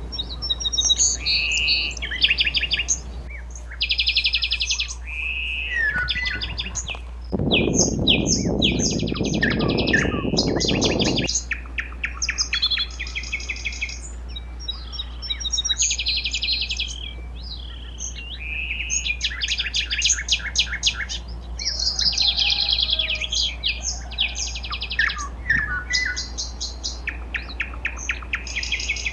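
Songbirds singing: phrases of rapid, evenly repeated chirping notes, each phrase lasting a second or two and coming one after another. A rush of noise joins in for a few seconds about a third of the way in.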